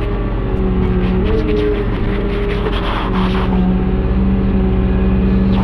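Excavator's diesel engine and hydraulics running, heard from inside the cab, the engine note shifting a few times under hydraulic load as the bucket tips asphalt into a paver hopper and lifts away.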